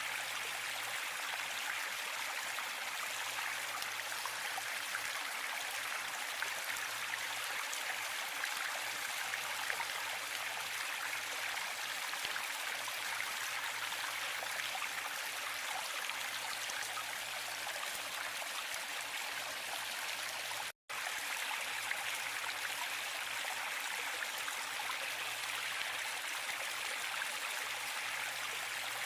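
Waterfall rushing steadily, an even hiss of falling water, broken once by a split-second dropout to silence about two-thirds of the way through.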